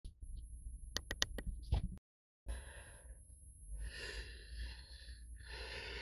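A few sharp clicks, then after a short cut, slow, heavy breathing close to the microphone: a few long breaths from a person lying in bed.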